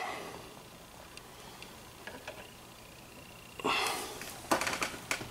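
Quiet room with a short sniff a little over three and a half seconds in, followed by a few light clicks.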